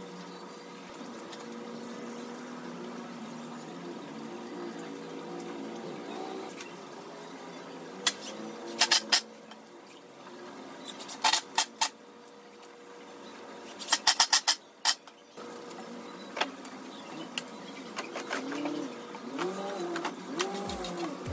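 Three short clusters of sharp metal-on-wood clatter over a steady background hum, as metal corner clamps are taken off a plywood cabinet frame and set down on its bottom panel.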